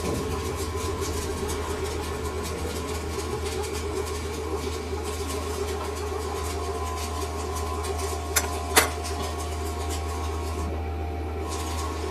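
A metal lathe running steadily with a constant low hum and steady machine tones, and two short, sharp metallic clicks about eight and a half seconds in.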